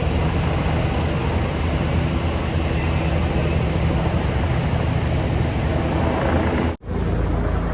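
Steady low engine drone, with a brief cut to silence about seven seconds in.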